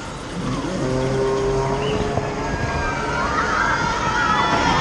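Steel roller coaster trains passing overhead: a steady low hum of the trains running on the track, then high, wavering squeals from about three seconds in.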